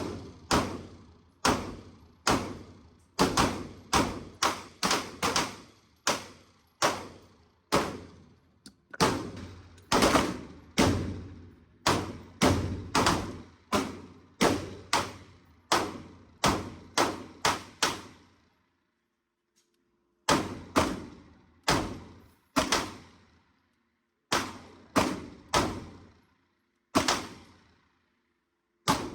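Gunfire: several dozen single shots in quick, irregular succession, each with a short echoing tail, with a pause of about two seconds past the middle before the shooting picks up again.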